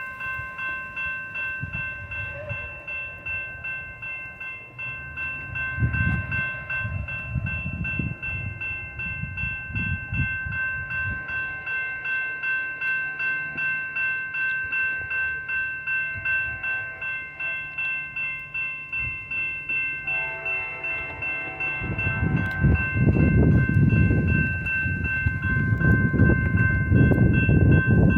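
Railroad crossing warning bell ringing in an even, repeating ding, about one and a half strikes a second. About three quarters of the way through, a loud low rumble joins it.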